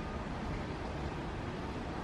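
Steady low rumble and hiss of a locomotive-hauled train approaching in the distance.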